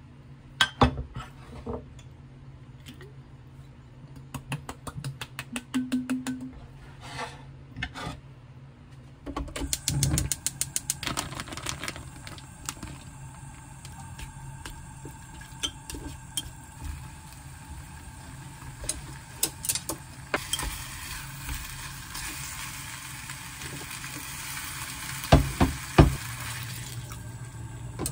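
Light taps and clicks of food being set on a plate. Then a wooden spatula stirs and scrapes beef bulgogi in an earthenware ttukbaegi pot, with a steady hiss from about twenty seconds in and a few sharp knocks near the end, over a low hum.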